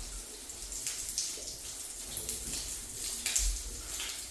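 Water running and splashing: a steady hiss broken by irregular splashes.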